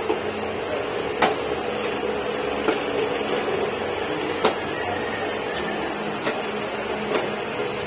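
Steady room hum with about six short, sharp clicks and knocks scattered through it, from toys and their packaging being handled.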